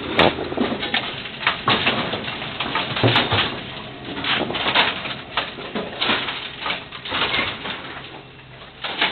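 Brunswick GS-X bowling pinsetter cycling on a test run after its loose slip-clutch gear wheel was tightened: an irregular run of mechanical clanks and knocks over the din of the machinery.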